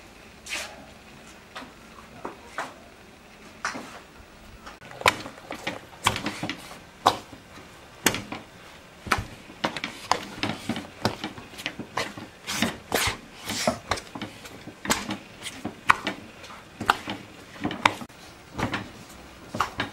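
Irregular sharp knocks and soft thuds of hands kneading a large mass of bread dough in a metal bowl, sparse at first and coming several times a second from about five seconds in.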